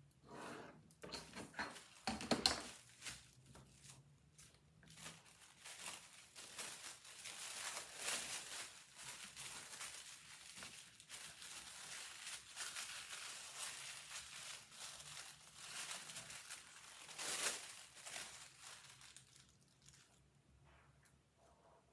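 Thin sewing-pattern tissue rustling and crinkling as pattern pieces are shifted, laid over one another and folded by hand. There are louder crinkles about two seconds in and again near the end, and then it dies away.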